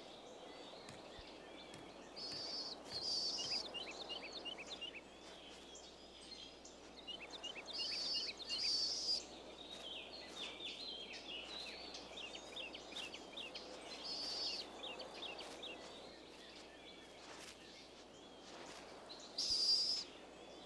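Small birds chirping over a faint outdoor hiss: quick runs of short high chirps, with several brighter high-pitched bursts a few seconds apart.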